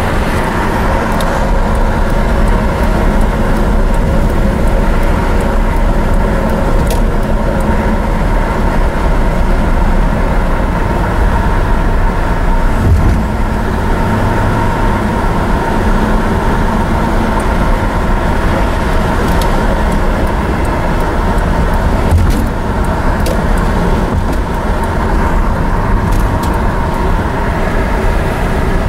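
Holden VR Commodore ute's V6 engine pulling steadily at about 2,000 rpm while cruising at 60–70 km/h, with road and tyre noise, heard inside the cabin. The engine is running on a VN automatic Commodore's engine computer in place of its stock manual one.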